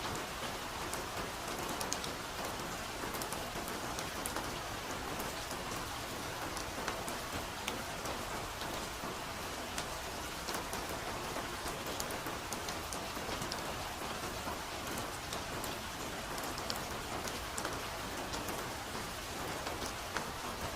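Steady soft rain falling on a forest canopy, an even hiss with many small drops pattering throughout.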